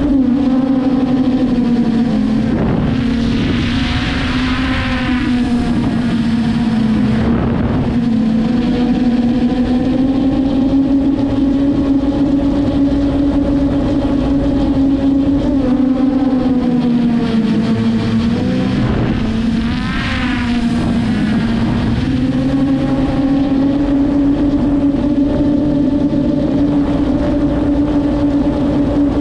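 Traxxas Aton quadcopter drone's motors and propellers running in flight: a loud, steady droning hum whose pitch wavers and dips a little now and then.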